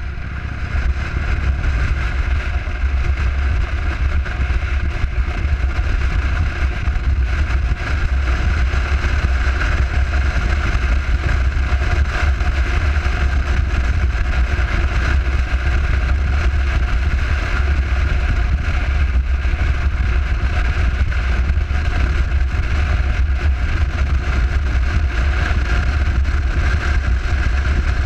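Cruiser motorcycle riding steadily at road speed: a constant low rumble of engine and wind rushing over the camera microphone, swelling a little in the first second.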